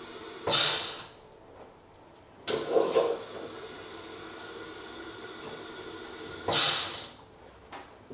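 Carimali Multi coffee machine's milk foaming device pulsing through its milk-line cleaning cycle, drawing up cleaning solution stop-and-start. A sharp hiss comes twice, about six seconds apart, and each is followed about two seconds later by a brief watery burst, over a steady background noise.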